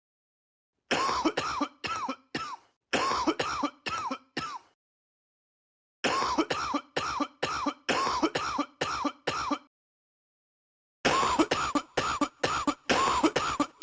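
Coughs cut short and repeated in a rhythmic pattern, a few a second, in four runs with dead-silent gaps between them: the cough sample behind a phonk beat.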